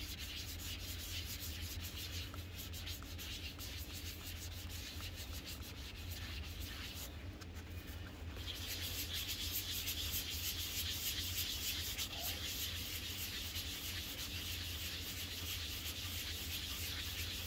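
Sanding sponge rubbed in quick circular strokes over the hard plastic lens of a solar light, a fine-grit pass working out scratches and yellowing. The scratching eases for about a second around seven seconds in, then resumes louder.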